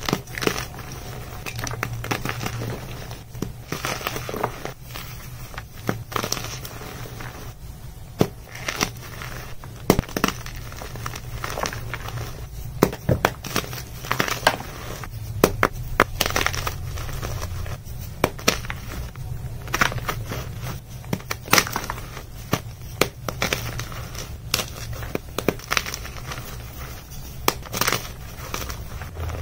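Blocks of pearly gym chalk dusted with orange powder being crushed and crumbled by hand: many irregular, sharp, dry crunches and snaps over a soft, powdery crumbling.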